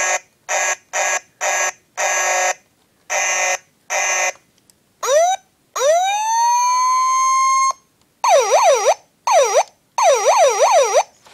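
2000 Hess toy fire truck's electronic sound effects: a run of about seven short buzzing horn blasts, then a siren that winds up to a steady tone and cuts off suddenly, then four bursts of a fast warbling siren.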